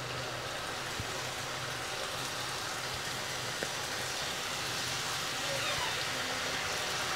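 Strips of shankarpali dough deep-frying in hot oil in a kadhai: a steady sizzle that grows slightly louder in the second half, with a couple of faint ticks.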